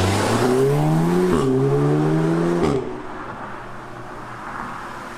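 Audi S3's turbocharged 2.0-litre four-cylinder engine accelerating, climbing in pitch. It shifts up about a second and a half in, climbs again, then drops in pitch and level near three seconds as the throttle comes off. A quieter steady engine and road rumble follows.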